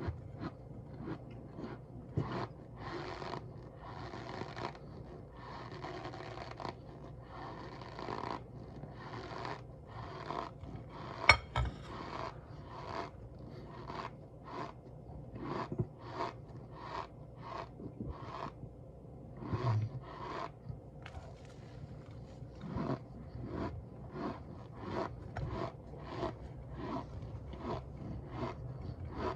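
Cornstarch being squeezed and pressed, making a steady run of short, dry crunches and squeaks about one or two a second. A few longer, drawn-out crunches come in the first several seconds, and one sharp click about eleven seconds in is the loudest sound.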